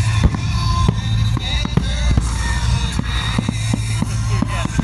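Fireworks shells bursting in a quick irregular run of sharp bangs and pops, over loud music with a steady bass line.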